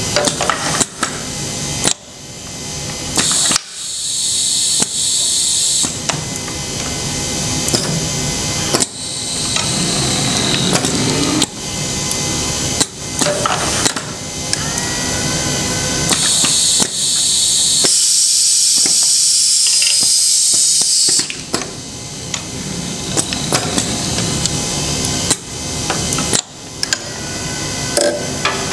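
Pneumatic actuators of a Festo modular production station cycling: sharp clacks of cylinders and the gripper reaching their stops, with bursts of compressed air hissing from the valves, two of them lasting a few seconds.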